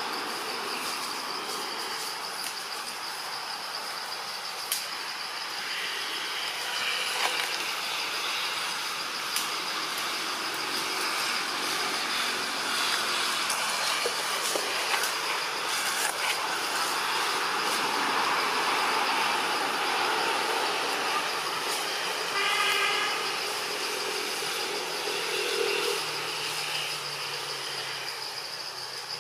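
Outdoor ambience: a steady high insect drone, crickets or cicadas, over a constant rushing background noise, with a short pitched call about three quarters of the way in.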